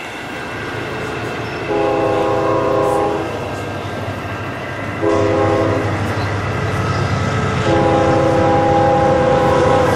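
Multi-tone diesel horn from the sound decoder of an HO-scale Union Pacific diesel locomotive model, sounded three times: long, short, then long. A steady low diesel-engine rumble plays from the model's speaker underneath.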